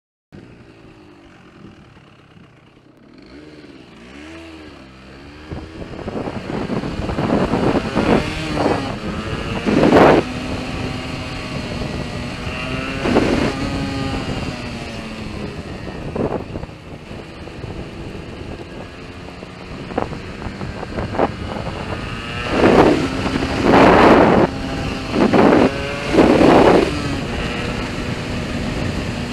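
Yamaha RD125LC YPVS two-stroke single-cylinder engine idling and revved in short blips, several in quick succession near the end, spluttering and misfiring.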